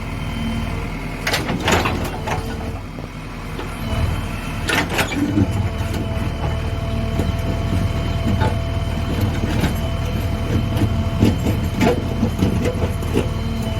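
JCB backhoe loader's diesel engine running steadily under work, with metallic knocks and clatter from the machine, the loudest about a second and a half in and about five seconds in.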